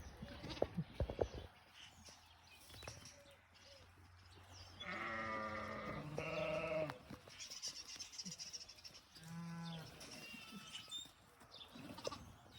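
Sheep bleating: two calls back to back about halfway through, then a lower call a few seconds later. A few sharp knocks in the first second or so are the loudest sounds.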